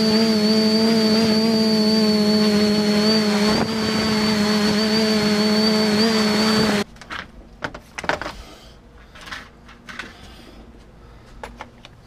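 Quadcopter's brushless motors and propellers running with a steady hum at one pitch and a high whine above it, which cut off abruptly about seven seconds in. After that, a few faint clicks and knocks of handling.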